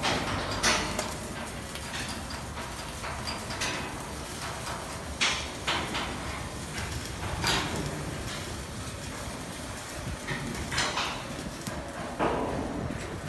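Shipyard steel work: a steady noisy din broken by about six sharp metal knocks, a few seconds apart, the loudest about a second in.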